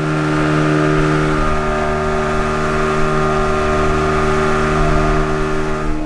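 Dive boat's engine running steadily at cruising speed, a constant drone that holds one pitch.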